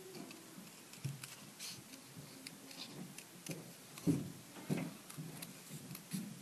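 Small craft scissors snipping around a stamped paper image: quiet, irregular snips and clicks of the blades cutting cardstock, with a few soft knocks from handling the paper, the loudest about four seconds in.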